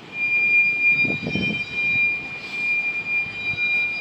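Freight car wheels squealing against the rail as a train rolls past: a loud, steady, high-pitched squeal that sets in just after the start, over the low rumble and clatter of the wheels.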